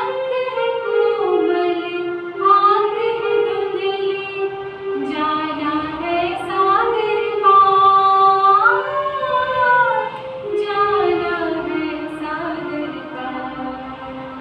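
A woman singing a slow melody with long held notes, accompanied by an electronic keyboard.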